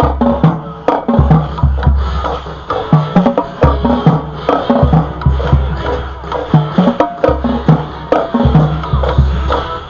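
Marching band music driven by percussion: deep drum hits on a steady beat, with sharp wood-block-like clicks and pitched instruments above.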